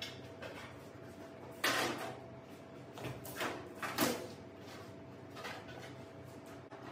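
Parts of a sliding-door file cabinet knocking and sliding as it is put together: a sharp knock nearly two seconds in and another about four seconds in, with softer scraping between, over a faint steady hum.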